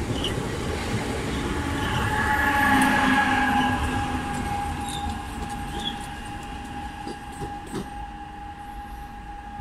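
Electric multiple unit moving through the station with a steady high whine over a rumble. It grows loudest about three seconds in, then gradually fades.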